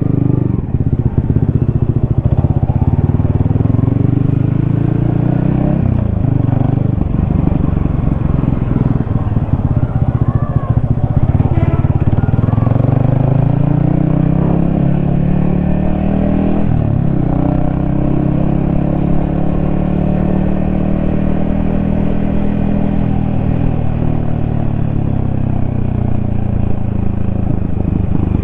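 Yamaha XSR155's single-cylinder 155 cc engine and exhaust under way, the pitch climbing as it pulls. The pitch dips sharply and picks up again twice, about six seconds in and about seventeen seconds in, as gears change; the engine then runs fairly steadily.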